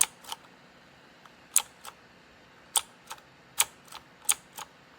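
Keys on a MageGee 75% mechanical keyboard with red linear switches pressed one at a time at a slow, uneven pace to show off their sound: about five sharp clicks, each followed a moment later by a softer click.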